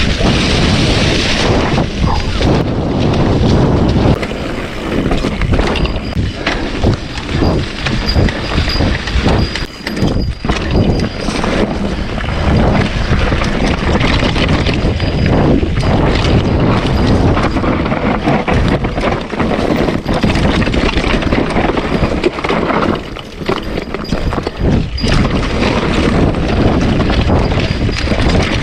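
Wind buffeting the microphone in a steady rough rumble, with scattered knocks and scuffs throughout.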